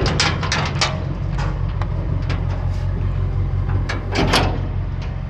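Truck engine idling steadily, with a few brief clicks or knocks over it.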